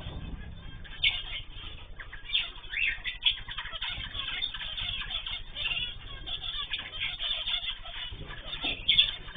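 Many small cage birds chirping and calling over one another, a dense overlapping chatter of short high notes with a few louder calls standing out.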